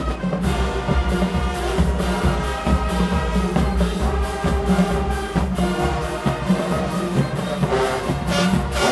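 A show-style marching band playing at full volume: a brass section holding sustained chords over a steady beat from the drumline.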